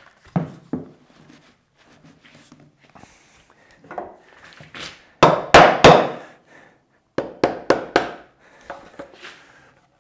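Wood-on-wood knocks as a glued bridle joint in a softwood 2x4 leg frame is banged together to seat it. There are two knocks near the start, the heaviest cluster a little past the middle, then about four quick knocks.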